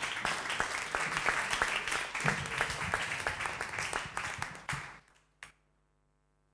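Audience applauding: many hands clapping at once, dying away and stopping about five seconds in. One last single clap follows, then only a faint steady hum.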